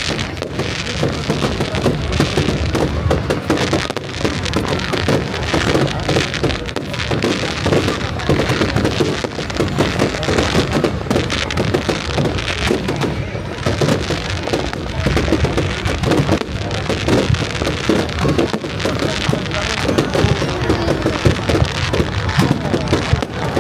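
Fireworks display at full barrage: a dense, unbroken run of bangs and crackles from many shells bursting at once.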